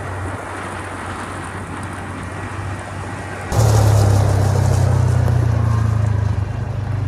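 Side-by-side utility vehicle driving on a gravel track: the engine hums steadily under road noise. About three and a half seconds in it suddenly gets much louder, with a close, heavy engine drone and the tyres crunching over gravel and leaves.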